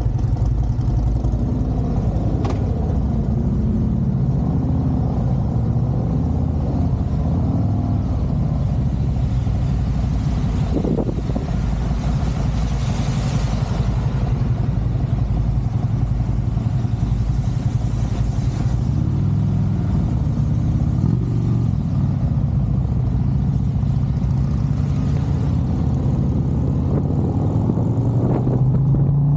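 Harley-Davidson motorcycle's V-twin engine running steadily while riding on a rain-wet road, with two swells of rushing hiss about a third and two thirds of the way through. Near the end it revs up with a rising pitch.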